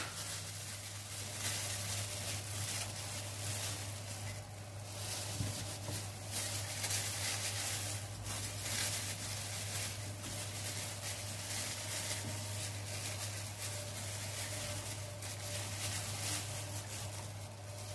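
Steady low hum with faint, irregular handling noises: onion rings being laid by hand into a ceramic baking dish, hands in plastic gloves.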